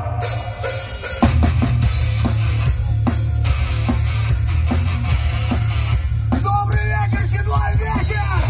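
Loud rock music with a drum kit and heavy bass; the drums come in hard about a second in.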